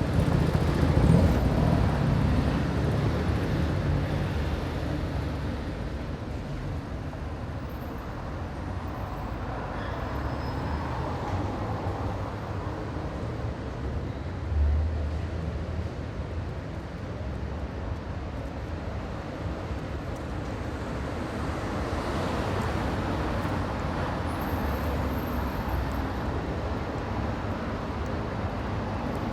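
Busy street traffic: car and scooter engines and tyres running past in a steady rumble, with a closer vehicle louder in the first few seconds and a short low thump about halfway.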